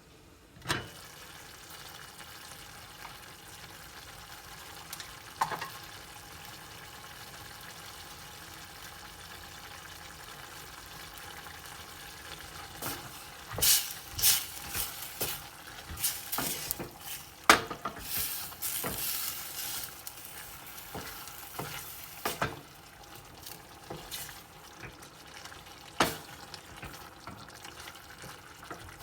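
Food sizzling as it fries in a pan, with a utensil stirring and scraping against the pan: a few single knocks early on, a run of clattering strokes through the middle, and one more knock near the end.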